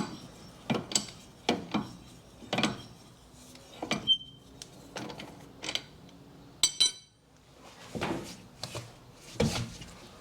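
Wheel bolts being taken out and the wheel coming off the hub: a run of knocks and scrapes, with one ringing metal clink about two-thirds of the way in.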